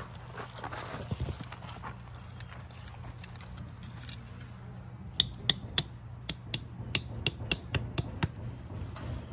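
Footsteps on loose soil, then from about five seconds in a quick series of sharp metallic clicks and taps as U-shaped wire hose staples are handled and pressed into the soil over a drip hose. A steady low hum runs underneath.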